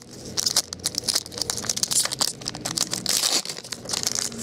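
A trading-card pack wrapper being torn open and crinkled by hand, with a busy run of irregular crackles and rustles.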